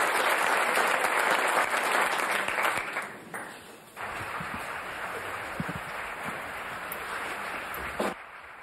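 Audience applauding, loud for the first three seconds and dying down, then steadier and quieter after a sudden change about four seconds in; it drops away abruptly near the end.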